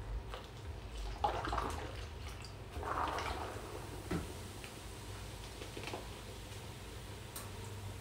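Vinegar poured from a plastic bottle through a plastic funnel onto baking soda in a spray bottle, splashing and gurgling in two short spells, then a single knock about four seconds in as the bottle is set down on the counter.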